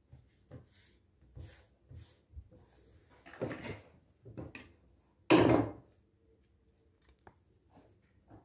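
Fabric being handled and smoothed flat by hand: scattered soft rustles and rubs, with one louder sound lasting about half a second a little past the middle. No sewing machine running.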